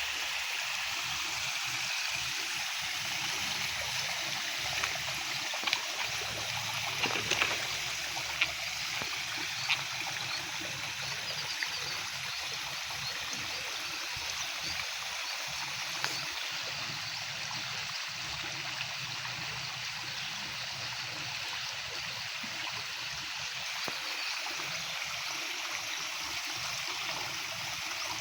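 Water running steadily, a continuous trickling flow, with a few brief clicks or splashes between about five and ten seconds in.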